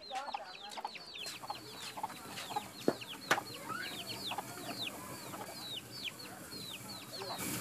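Chickens in a yard: many short, high peeps that fall in pitch, several a second, with some lower clucking. A couple of sharp knocks come about three seconds in.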